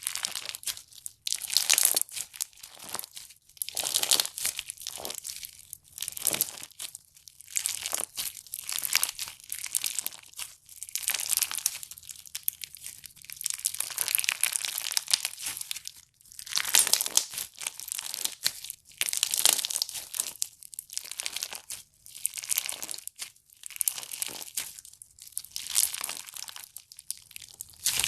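Slime being squeezed and pressed by hand, crackling and crunching in irregular bursts every second or two.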